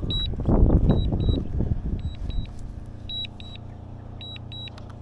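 DJI drone remote controller beeping in short double beeps about once a second, its return-to-home alert while the DJI Mini 2 SE flies back. A low rumble on the microphone covers the first two seconds, then only a faint steady hum remains under the beeps.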